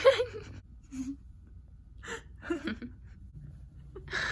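A person's short gasps and breathy vocal sounds, with a breathy burst near the end.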